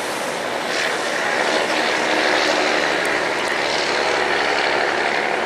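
Pink Line monorail train (Bombardier Innovia Monorail 300) passing on its curved elevated guideway: a steady whirring of its rubber tyres and electric traction motors, loudest around the middle as it comes closest.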